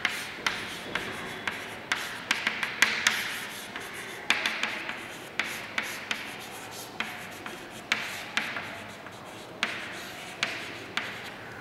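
Chalk writing on a chalkboard: short scratchy strokes with many sharp taps where the chalk meets the board, irregular, as handwritten words are written out.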